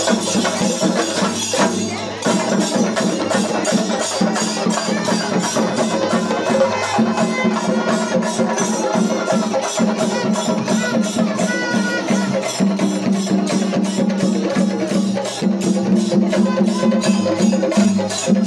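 A drum troupe beating large barrel drums with sticks in a fast, steady rhythm, with a steady low tone beneath. The beat falters briefly about two seconds in, then carries on.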